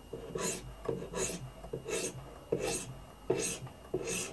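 A coarse sharpening stone on a guided-angle sharpener's arm scraping along a CPR-steel knife's convex edge in short, even strokes, about six of them. These are light strokes taking off the burr at the edge.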